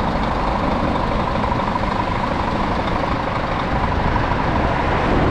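Scania lorry's diesel engine idling steadily, with wind buffeting the microphone.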